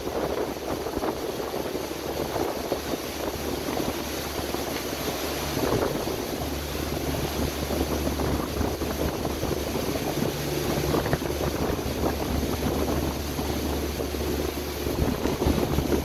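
Steady rushing of a large waterfall and its blown spray, over the low hum of a boat's engine, which grows stronger about six seconds in.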